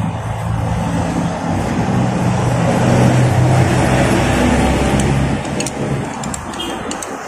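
A motor vehicle's engine running, with a low hum and a rush of noise that swell to their loudest about halfway through and then fade, like a vehicle driving past. A few light clicks come near the end.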